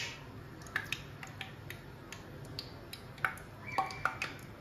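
Pan of hot cooking oil at medium heat giving sparse faint ticks and pops over a low hiss, with a brief thin tone near the end.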